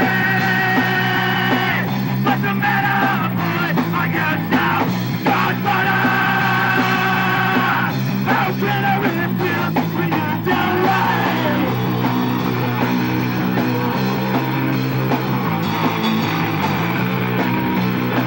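Punk rock band playing live: electric guitars and a drum kit, with yelled vocals near the start and again about halfway through, then the band playing on without singing.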